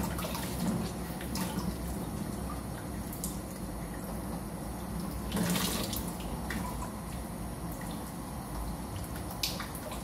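Kitchen tap running in a thin stream into the sink while eggs are rinsed and rubbed by hand with a sponge under it, with small splashes and clicks against the basin. There is a louder splashy moment about five and a half seconds in.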